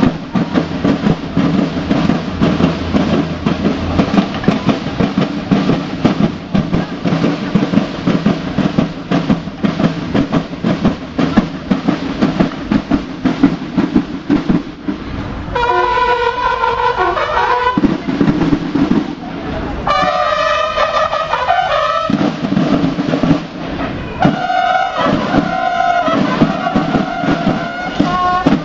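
Outdoor crowd din with many short sharp knocks. From about halfway, three stretches of pitched, wavering sound like music or a horn come in, a few seconds each.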